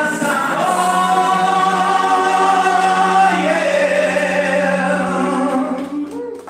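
A man singing through a microphone over backing music, holding one long note early on, then the song winds down near the end as a few handclaps come in.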